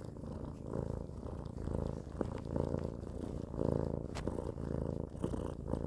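Domestic cat purring, the purr swelling and fading about once a second, with a few small clicks.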